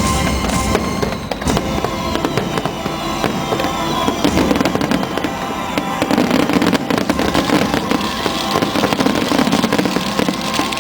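Fireworks bursting and crackling densely and continuously, with show music playing underneath.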